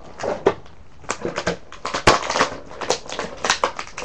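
Plastic toy packaging crackling, with irregular sharp clicks, as it is handled and opened by hand.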